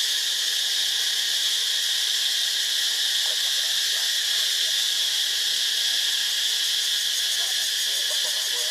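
Dense, steady insect chorus, a high shrill drone that does not change. Faint wavering squeals come in briefly about three seconds in and again near the end.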